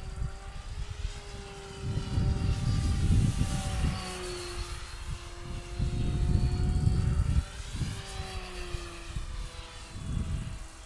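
Electric motor and propeller of a small RC racing model plane (Cosmic Wind, 920 mm span) in flight, a steady whine whose pitch slides slowly up and down as the plane moves about. Bouts of low wind rumble on the microphone are louder than the plane at times.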